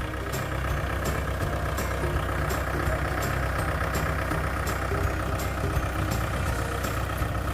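Engine running steadily at a low, even speed, with a faint regular tick about twice a second.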